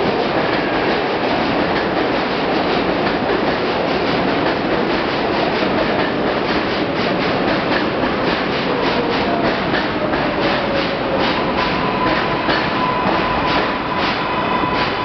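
R142A subway train pulling into an elevated station alongside the platform, its wheels clacking rhythmically over the rail joints. About two thirds of the way in, a whine from the motors falls in pitch as it brakes, then settles into a steady high hum. A set of high steady tones begins near the end.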